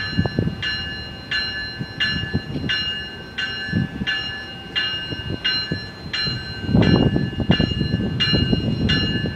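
A passenger train's warning bell ringing steadily, about one and a half strikes a second, as the Amtrak train starts to pull out. From about seven seconds in, the train's low rumble grows louder under the bell.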